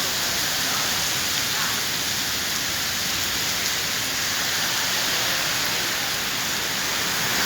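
Heavy rain pouring down steadily onto the street in a downpour, an even hiss.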